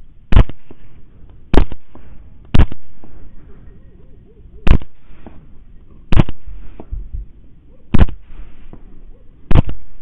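Seven rifle shots fired about one to two seconds apart, each a sharp crack with a short decaying tail.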